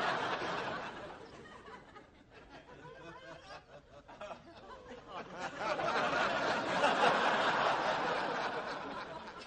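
Studio audience laughing, dying away over the first couple of seconds, then swelling into a second laugh about halfway through that fades near the end.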